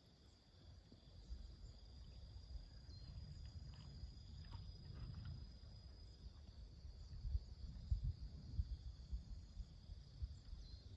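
Faint, steady high drone of insects, with low gusty rumble of wind on the microphone that grows stronger in the second half.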